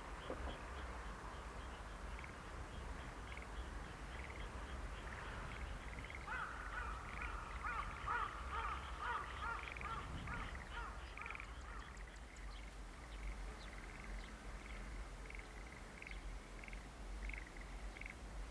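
Frogs calling: a short high call repeating about three times a second, joined in the middle by a louder, rapidly pulsing chorus, over a steady low rumble.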